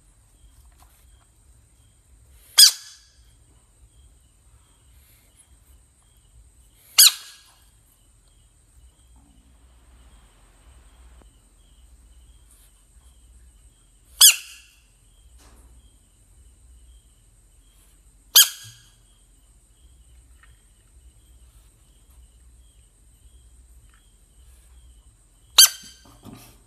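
A rain frog squeaking: five short, sharp, high-pitched squeaks spaced several seconds apart. This is the defensive squeak rain frogs give when disturbed.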